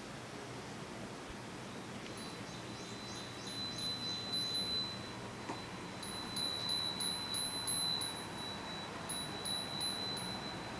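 Japanese wind bell (fūrin) ringing in the breeze: one high, clear note struck in quick runs of tinkling strikes, coming in three spells that begin about two seconds in.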